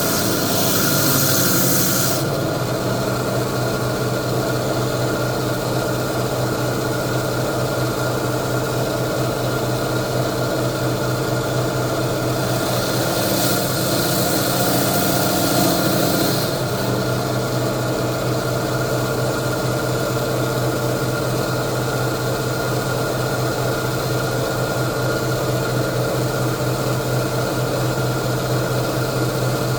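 Coral saw running with a steady motor hum. Twice it gives a harsher, hissing grind: for about two seconds at the start and for about four seconds from around twelve seconds in, as the blade cuts through hammer coral skeleton.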